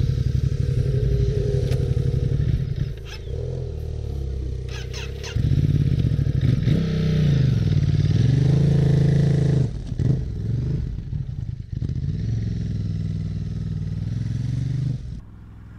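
Motorcycle engine running under way, its pitch rising and falling several times as the throttle opens and closes. The sound drops away abruptly near the end.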